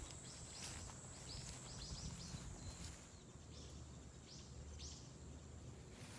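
Quiet outdoor ambience with a small bird giving short high chirps, a quick run of several about a second in and a few more near the end, over a steady thin high tone and a faint low rumble.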